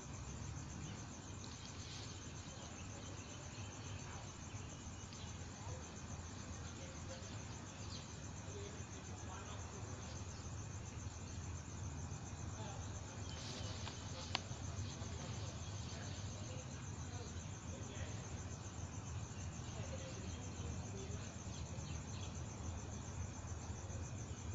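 Crickets chirring steadily at a high pitch over a low background rumble that grows slightly louder, with one sharp click about fourteen seconds in.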